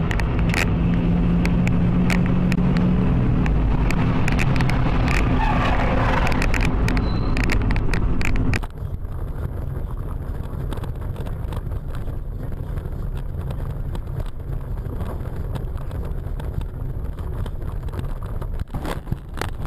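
Car engine and road noise. A loud, steady engine hum runs for about eight and a half seconds, then cuts abruptly to a quieter stretch of driving noise with scattered short knocks.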